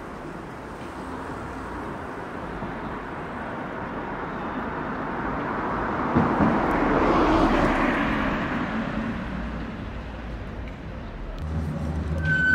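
Street traffic noise with a vehicle passing by: a rushing sound that builds to a peak about halfway through, then fades away. Music starts near the end.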